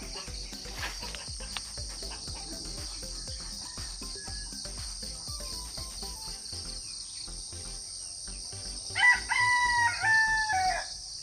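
A rooster crows once near the end: a drawn-out cock-a-doodle-doo lasting about two seconds, in a few linked phrases that dip in pitch at the close.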